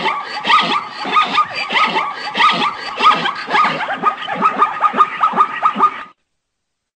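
Zebra calling: a rapid run of repeated bark-like calls, several a second, coming faster toward the end and cutting off suddenly about six seconds in.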